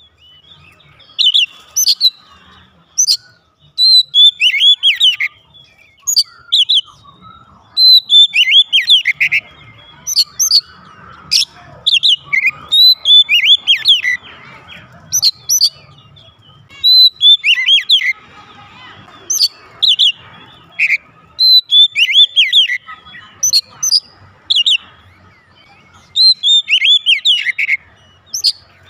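Oriental magpie-robin singing loudly in full song: repeated phrases every couple of seconds of clear, down-sliding whistles mixed with sharp, high piercing notes.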